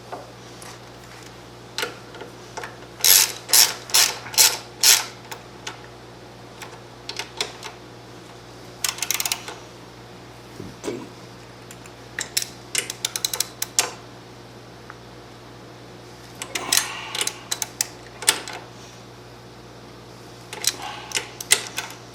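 Hand ratchet wrench clicking in several short bursts, with pauses between them, as the exhaust bracket bolts are run in and tightened. The loudest burst comes about three seconds in.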